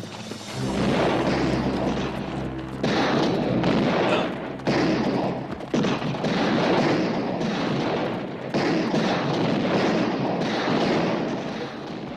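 Heavy gunfire in a shootout: many shots fired in rapid succession, coming in several fresh waves that each start suddenly.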